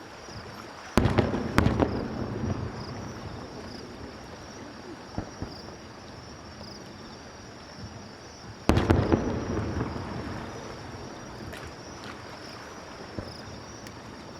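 Aerial fireworks shells bursting: two loud volleys, one about a second in and one near nine seconds. Each is a few sharp bangs followed by a rumbling echo that dies away over a few seconds.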